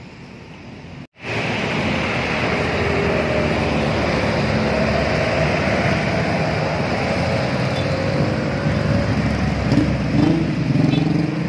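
Busy city road traffic: a steady mix of coach, car and motorcycle engines and tyre noise, coming in abruptly about a second in, with a few short wavering engine tones near the end.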